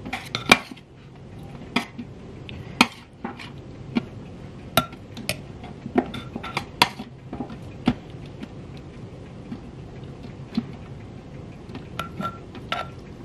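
A metal spoon clinking and scraping against a stainless steel tray, in irregular sharp clinks about once a second, while boiled chillies and lemongrass are picked out and dropped into a mortar.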